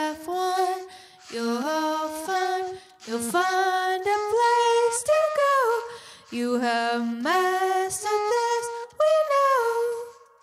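A woman singing without words and without accompaniment: short phrases of held notes that slide up or down into the next, with brief gaps between the phrases.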